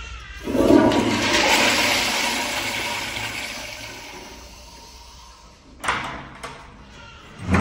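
Kohler Highcliff Ultra wall-hung toilet flushed by its manual flushometer valve: a sudden rush of water about half a second in that fades steadily over the next few seconds. A short knock follows near the end.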